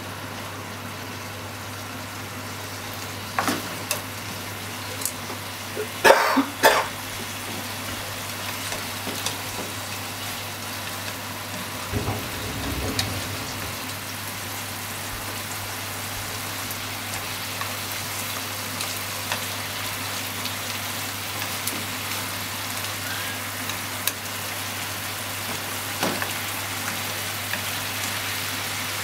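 Pork slices and sliced onion sizzling in a frying pan, with wooden chopsticks clicking against the pan as the food is stirred and turned; the loudest clatter comes about six seconds in. A steady low hum runs underneath.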